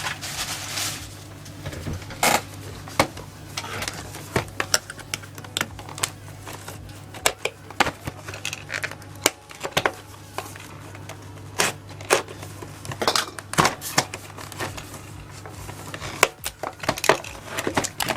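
Hands opening a small cardboard box of trading-card packs and a die: scattered clicks, taps and rustles of card and packaging being handled, over a steady low hum.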